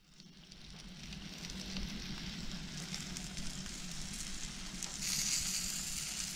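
Foil-wrapped whole fish, stuffed with lemon and butter, sizzling on a hot barbecue hotplate: a steady hiss with fine crackle that builds gradually and grows louder about five seconds in.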